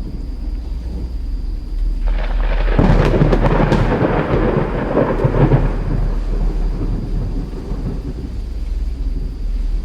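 Thunder over steady rain: a loud crack about three seconds in rolls into a rumble that lasts a few seconds and slowly fades.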